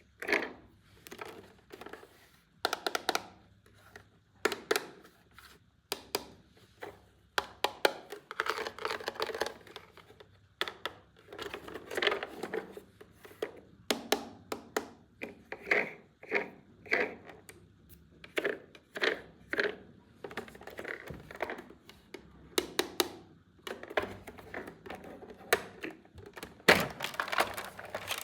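Hard plastic toy pieces and packaging being handled: irregular clicks, knocks and short bursts of rustling.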